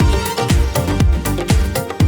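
Background music with a steady electronic dance beat, about two kick-drum strikes a second.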